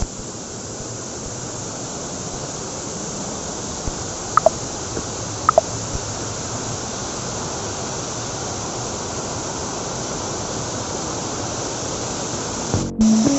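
Steady rush of a monsoon-swollen waterfall. Two short chirps, each falling in pitch, stand out above it about a second apart, a little before the middle.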